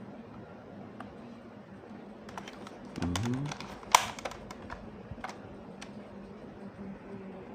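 Scattered clicks and taps of hard plastic from handling a toy Kamen Rider Grease Blizzard Knuckle, with one sharp, loud click about four seconds in.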